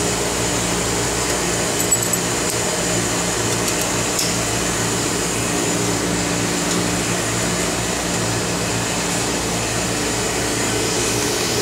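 Steady hum of running lab machinery, the plasma etch system's vacuum pumps and cooling fans, with several constant low tones and a faint high whine.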